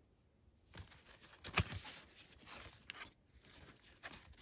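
Paper and packaging being handled, rustling and crinkling, with a few sharp clicks, starting about a second in.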